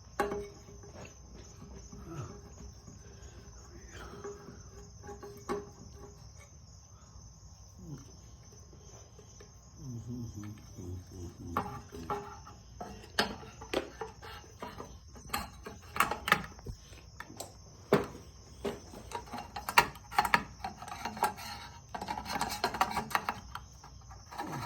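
Sharp metal clicks and clinks of ceiling-fan light-kit parts and screws being handled and fitted, coming thick and fast in the second half, over a steady high-pitched chirring tone.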